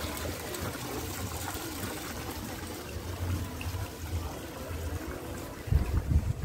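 Outdoor garden ambience: a steady, even rushing hiss with an unsteady low rumble underneath, swelling in a few louder bursts near the end.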